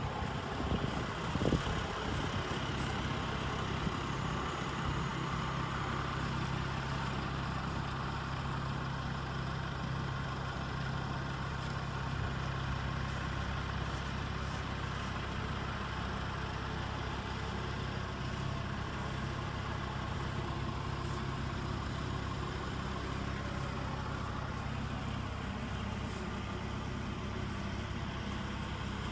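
2014 Kubota M108S tractor's diesel engine idling steadily, with a few brief bumps about a second in.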